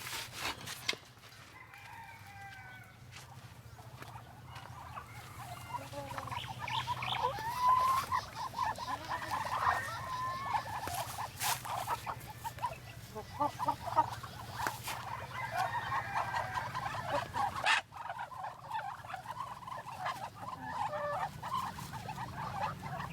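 A flock of chickens clucking, the calls thickening a few seconds in and breaking off briefly near 18 seconds before resuming.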